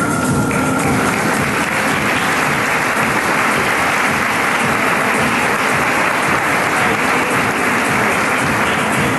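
Audience applauding, loud and steady, over the show's background music. The applause swells in about half a second in and falls away near the end as the music comes back up.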